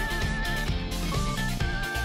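Background instrumental music with a melody over guitar and drums.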